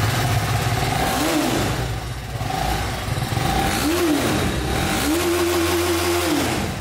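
TVS Apache motorcycle engine running at idle and revved three times: two short blips and then a longer rev held for about a second and a half before dropping back, heard close to the exhaust silencer.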